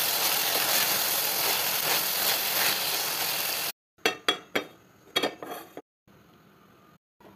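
Shredded vegetables stir-frying in a hot nonstick pan: steady sizzling with the spatula scraping and tossing them. It cuts off suddenly a little under four seconds in, followed by a few sharp knocks and clinks of cookware and then a faint hum.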